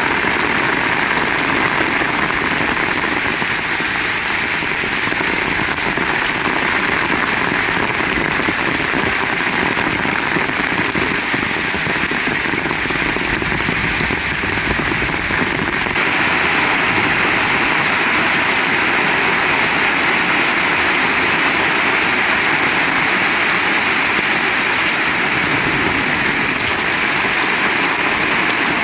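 Heavy rain pouring down as a dense, steady hiss. Its texture changes abruptly about halfway through.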